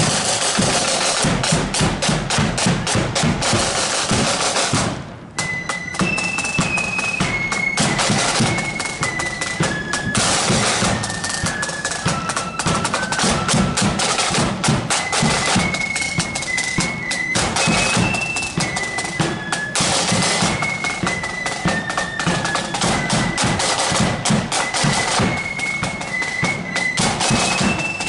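Marching flute band playing: a snare drum roll with bass drum for about five seconds, a brief break, then the high-pitched flutes come in with a melody over snare and bass drums.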